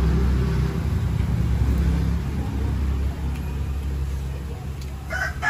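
Steady low engine rumble of a motor vehicle running close by. A rooster starts to crow right at the end.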